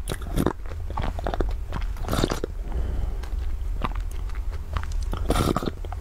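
Close-up mouth sounds of drinking from a glass mug: small wet clicks with three longer sipping and swallowing sounds, about half a second in, around two seconds and near the end. A steady low hum runs underneath.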